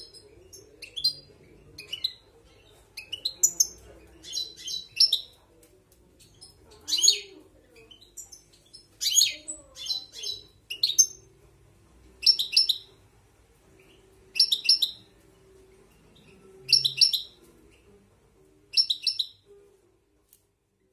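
European goldfinch calling: short, bright notes in quick clusters of two or three, repeated every second or two. In the second half the clusters fall into a steady rhythm about two seconds apart.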